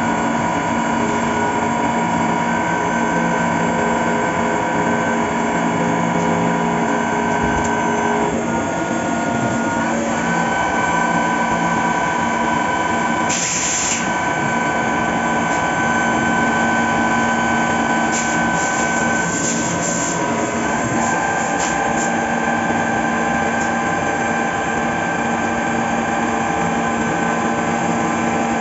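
Fagima Jazz M five-axis CNC milling machine cutting metal: a steady whine of several tones over a noisy bed, the pitches shifting about a third of the way through. A short hiss comes about halfway through.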